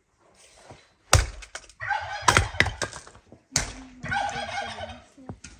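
Domestic fowl calling twice, each a rough call about a second long, with a few sharp knocks around the calls.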